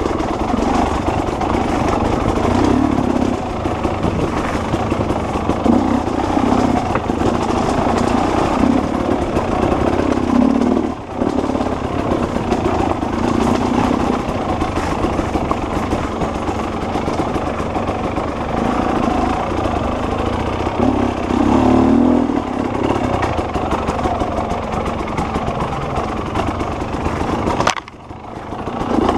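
Off-road dirt bike engine running as it is ridden, its revs rising and falling every few seconds as the throttle opens and closes. The sound dips briefly about eleven seconds in and drops off sharply for a moment near the end.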